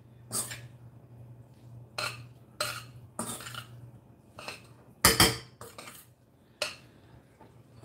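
Cutlery and dishes clinking: about seven separate short clinks and knocks of utensils against plates, the loudest about five seconds in.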